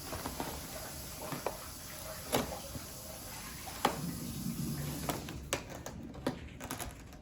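Cardboard packaging being handled and opened: scattered clicks and light knocks over soft rustling.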